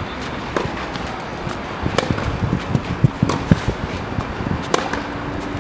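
Tennis rally on a clay court: sharp pops of the ball struck by rackets a second or two apart, with softer ball bounces between, over a steady low rumble. A steady hum begins near the end.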